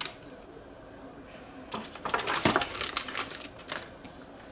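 Hands handling a USB cable and its crinkly plastic wrapping: a quick flurry of plastic rustles and small clicks from about two seconds in, lasting around two seconds.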